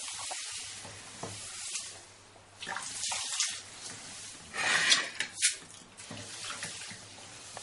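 Water swishing and splashing as finger millet grains are rinsed by hand in a clay pot at a sink, washing out grit and impurities. Louder splashes come about three and five seconds in, with a sharp knock just after the second.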